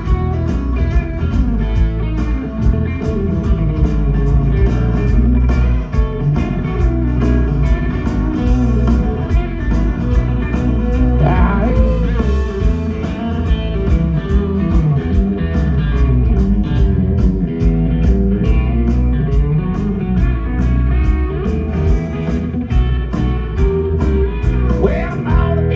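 Live country band playing an instrumental break between verses, with guitar to the fore over bass and a steady drum beat.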